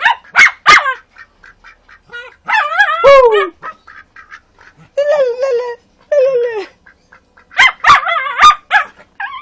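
A dog barking in short bursts, with a duck quacking in between. There are sharp barks near the start and a run of them about three quarters of the way through.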